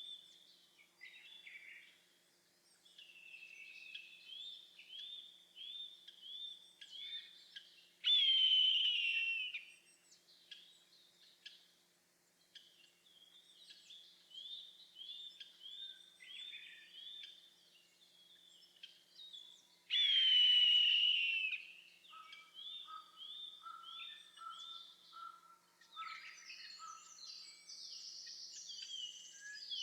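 Eastern buzzard calling twice, about twelve seconds apart: each a loud, drawn-out call that falls in pitch. Between them, small songbirds keep up quick repeated chirps.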